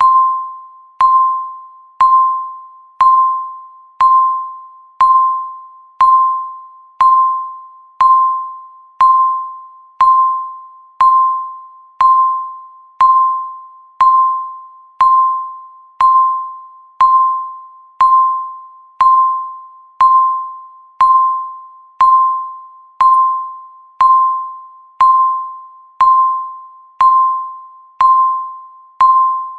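Countdown timer beeping once a second: a single high chime-like tone that strikes sharply and fades away before the next, about thirty in a row.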